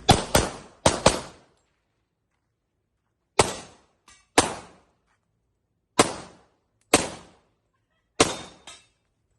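Handgun fired in a timed shooting stage: two quick pairs of shots at the start, then single shots and pairs with pauses of about a second or more between them, about ten shots in all, each with a short echo tail.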